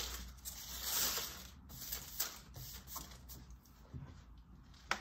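Dry autumn leaves rustling and crackling as they are gathered up by hand. The rustle is loudest in the first second or so, then thins to fainter scattered crackles.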